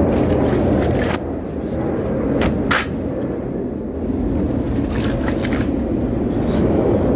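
Steady low rumble of a running vehicle, with a few short knocks and clicks over it.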